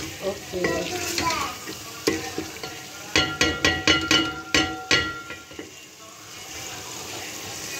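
Wooden spoon stirring a thick vegetable curry frying in ghee in an aluminium pot, with sizzling throughout. A quick run of ringing knocks from the spoon against the pot comes about three to five seconds in. This is the bhuna stage, the curry fried down after the ghee has separated.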